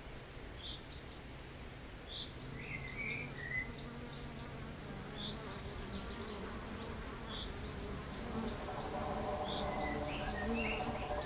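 Honeybees humming steadily, with a bird chirping repeatedly over them. Steady musical tones fade in over the last few seconds.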